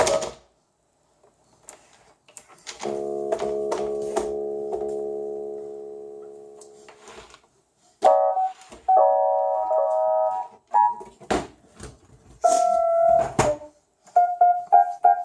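Electronic keyboard pressed at random rather than played as a tune: a chord of several notes held and slowly fading, then short jabs of notes and chords. Knocks from the keys being struck come through between the notes.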